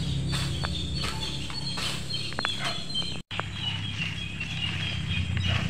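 Birds and insects chirping over a low steady rumble, with a few faint knocks of a long-handled garden tool chopping weeds from the soil. The sound drops out for an instant a little over three seconds in.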